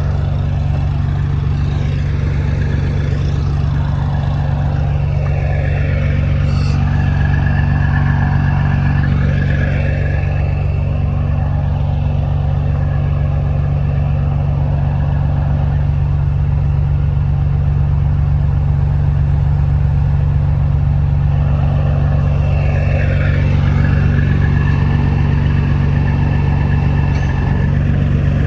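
A Peterbilt glider semi truck's freshly overhauled diesel engine running steadily, heard from inside the cab, with sounds rising and falling in pitch twice, a few seconds in and again near the end.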